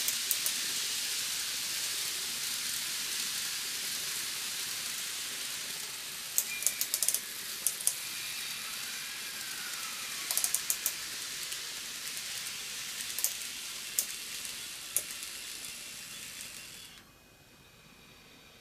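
N-gauge model train running around a track loop: a steady high hiss of the wheels on the rails, with clusters of sharp clicks as the cars run over the track joints. The running noise cuts off suddenly about 17 seconds in; the motor's own sound is barely heard.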